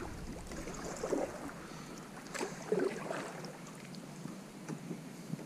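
Kayak paddling on calm water: paddle blades dipping and splashing softly, with a few light knocks.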